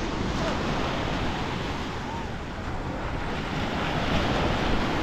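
Steady wash of ocean surf on the beach, with wind blowing on the microphone.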